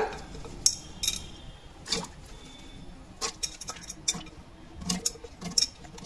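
Pieces of raw tapioca (cassava) dropped by hand into an aluminium pressure cooker of water: scattered light knocks and clinks against the pot at irregular intervals.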